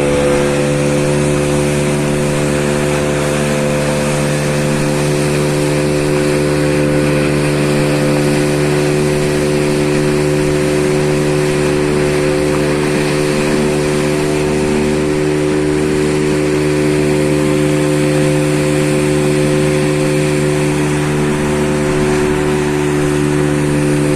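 A small engine running steadily on a boat at an unchanging speed, a constant drone.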